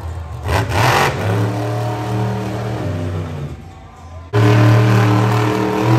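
Monster truck engine revving over loud music from the arena speakers; the sound jumps suddenly louder about four and a half seconds in.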